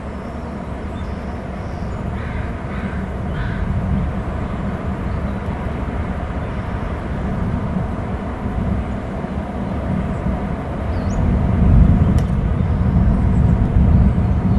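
Steady low outdoor rumble of wind and surf on the microphone, growing louder about eleven seconds in, with a few faint bird calls a few seconds in.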